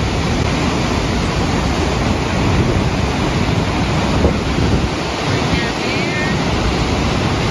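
Water released from the full Buffalo Bill Dam reservoir blasting out of the canyon wall and crashing into the gorge below: a loud, steady rush of whitewater with a low rumble, and wind on the microphone.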